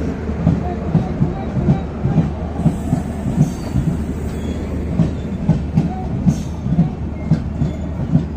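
Passenger train coaches rolling past, their wheels knocking rhythmically over the rail joints about two times a second over a steady low rumble.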